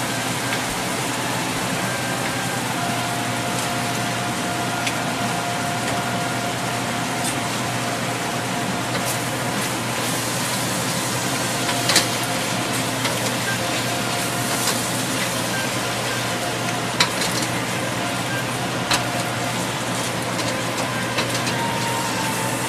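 Scallops sizzling steadily in hot oil in a carbon-steel wok, then shrimp tipped in about halfway with a sharp clatter and stirred with a spatula that knocks against the metal a few more times.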